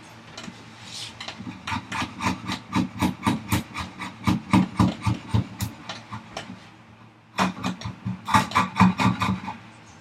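Hand tool working hardwood at the opening of a workbench vise chop: a fast run of short, sharp scraping strokes, about four or five a second, pausing briefly about seven seconds in before resuming.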